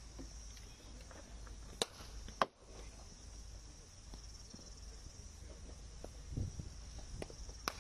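Sharp cracks of a cricket bat hitting the ball in the practice nets: two loud ones about two seconds in, just over half a second apart, and a lighter one near the end. A steady high-pitched hiss runs underneath.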